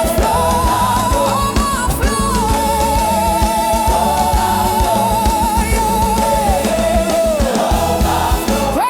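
African gospel praise song: a singer holds one long note with vibrato over drums and bass, then the voice slides down near the end.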